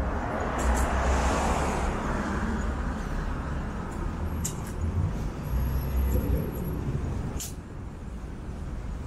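City street traffic: a car passing on the road swells up and fades away over the first few seconds, over a steady low rumble of traffic, with a few short clicks later on.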